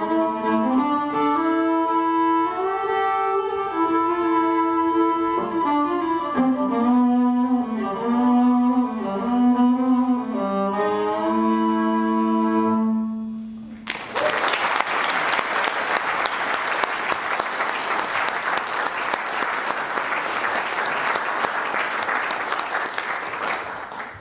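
Solo violin playing a slow melody, ending about fourteen seconds in on a long held low note. Audience applause follows for about ten seconds and dies away near the end.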